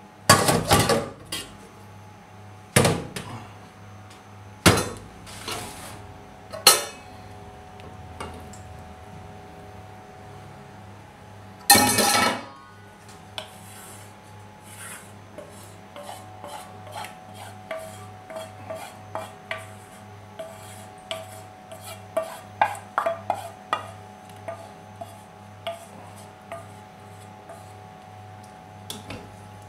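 Kitchen clatter: a few loud knocks of a plastic colander and pots against a stainless steel sink, and a louder noisy burst about twelve seconds in. From about the middle on, a wooden spoon scrapes and taps sauce out of a pan into a steel pot, a couple of small clicks a second, over a faint steady hum.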